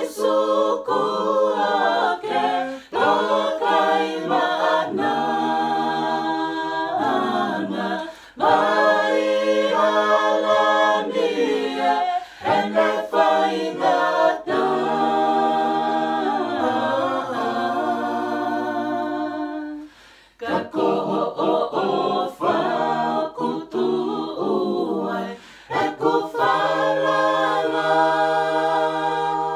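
Mixed group of men's and women's voices singing a Tongan gospel song a cappella in harmony, with long held chords. Short breaks for breath come between phrases, and one brief near-silent pause falls about two-thirds of the way through.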